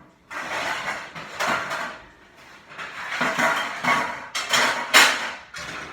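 Metal baking pans being rummaged and scraped against each other and a metal surface, in several loud, rough swells of scraping and clattering.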